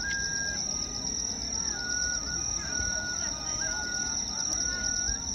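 Insects chirring in one high, continuous pulsing trill. Under it, a flute plays a slow festival tune of held notes that step up and down, over a low crowd murmur.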